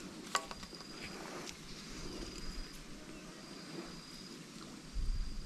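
An insect calling in short, high, steady-pitched notes that repeat every second or so. A sharp click comes about a third of a second in, and a low rumble starts near the end.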